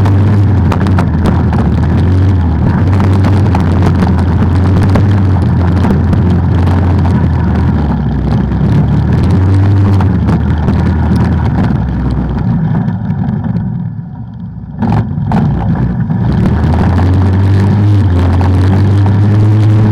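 ATV engine running as it is ridden on a trail. It eases off about two-thirds of the way through, with a couple of sharp knocks, then picks up again.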